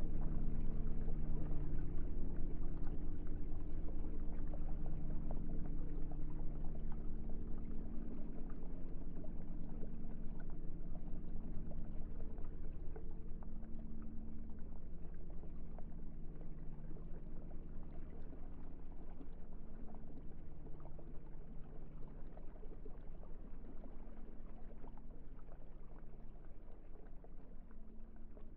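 Ambient meditation drone: several low tones held steady under a fine crackling, water-like noise, the whole fading slowly out.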